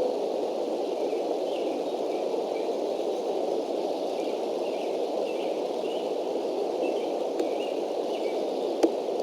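Outdoor ambience from a nest-cam microphone: a steady rushing noise with faint, scattered small-bird chirps. A sharp click comes near the end.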